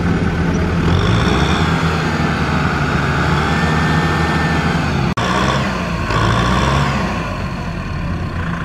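Diesel farm tractor engine running hard under load, its revs rising and falling as the tractor strains to drive out of deep mud while under tow. The sound breaks off sharply for an instant about five seconds in, then the engine revs up again.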